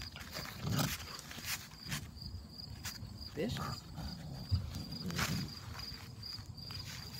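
Two Great Pyrenees puppies play-fighting: paws and bodies scuffing and scratching on woven landscape fabric, with low puppy growls and a short rising whine about three and a half seconds in. Insects chirp steadily in the background in a fast, even pulse.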